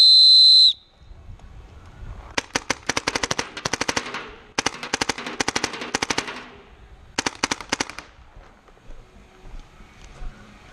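A short, high-pitched electronic beep at the very start, then a paintball marker firing three rapid strings of shots, the first two about two seconds each and the last one brief.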